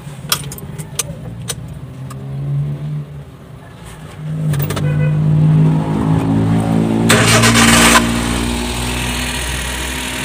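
Suzuki Multicab's K6A three-cylinder engine being started with the key: a few clicks, then the engine catches about four and a half seconds in and runs, settling to a steady idle while still cold. A brief loud rush of noise comes about seven seconds in.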